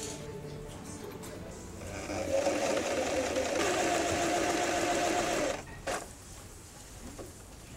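Electric domestic sewing machine stitching fabric: a steady run of a few seconds starting about two seconds in, then stopping abruptly, with a single click just after.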